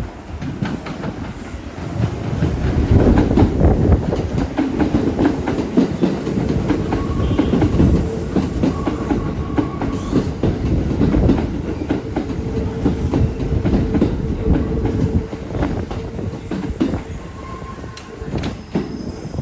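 Kintetsu train passing over a level crossing, its wheels clattering over the rail joints in many rapid clicks, with a steady tone held above the rumble.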